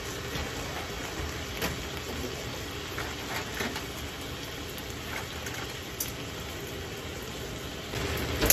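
Steady low hum of a kitchen fan, with a few faint ticks and crackles as a pan of minced chicken, sugar and soy sauce starts to heat on an induction cooktop. The hum grows louder near the end.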